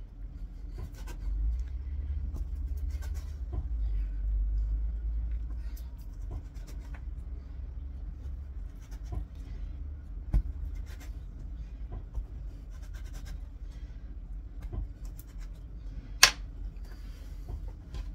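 Quiet handling of pastry dough being shaped by hand on a work surface: faint scratches and light taps over a steady low rumble. There is one sharp click about ten seconds in and a louder one near the end.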